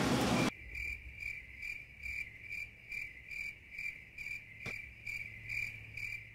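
Cricket chirping: a thin, high chirp repeated evenly about two and a half times a second over otherwise clean silence, cut in abruptly as an edited-in crickets effect. A single sharp click about four and a half seconds in.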